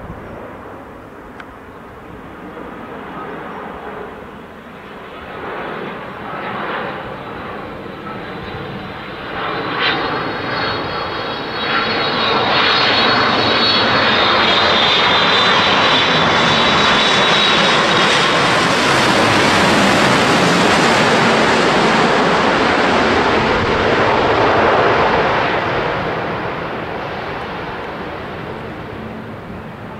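Boeing 787 Dreamliner's twin turbofan engines on a low pass: a jet roar that swells about ten seconds in, with a high engine whine over it, stays loud as the aircraft passes close, then fades away over the last few seconds.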